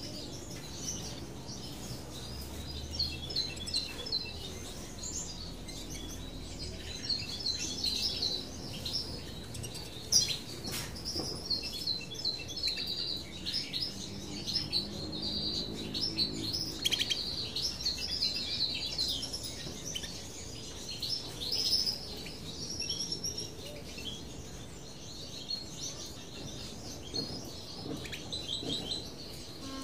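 Small finches chirping: rapid, high, thin chirps and peeps repeated over and over with short pauses.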